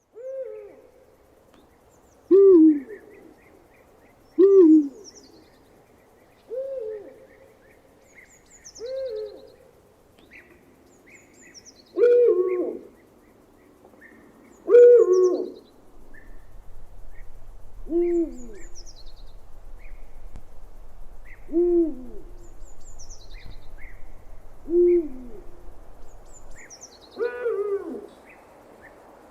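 An owl hooting: about eleven short single hoots, repeated every two to three seconds, many dipping in pitch as they end. Faint high chirps sound between the hoots.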